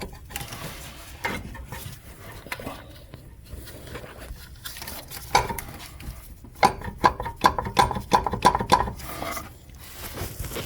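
Metal hand tools clinking and clicking against bolts and engine-bay metal as the bolts of a car's AC compressor bracket are undone. The clinks are sparse at first and come thick and fast in the second half.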